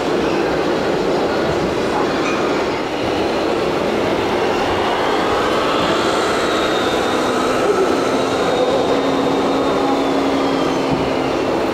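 Steady din of a busy exhibition hall. A faint whine rises near the middle and falls away later, and a low steady hum runs through the second half.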